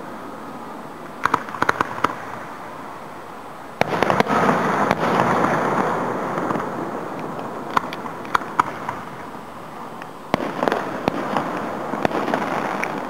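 Aerial fireworks display heard from about a quarter mile away. A cluster of sharp cracks is followed about four seconds in by a deep boom that rumbles on with crackling, then scattered cracks, and another boom with crackles about ten seconds in.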